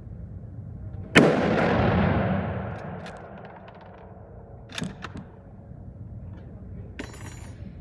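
A single shot from a Mannlicher-Carcano bolt-action rifle about a second in, followed by a long echoing rumble that dies away over about two seconds. A couple of sharp clicks come near five seconds in, and a short rattle near the end.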